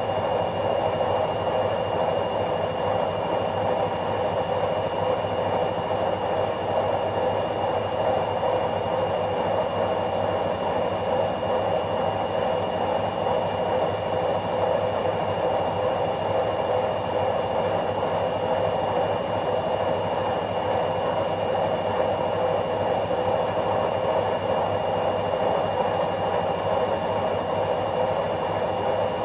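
Washing machine running: a steady, even whirring hum with thin, constant high-pitched whines layered above it, unchanging throughout.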